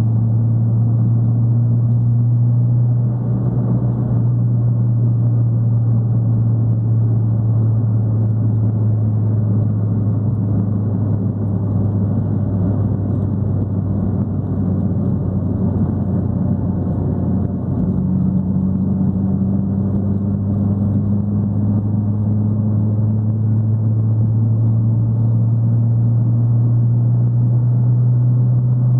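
Fiat Palio's engine and exhaust droning steadily at cruising speed, a deep even note that barely changes pitch, over tyre and road noise.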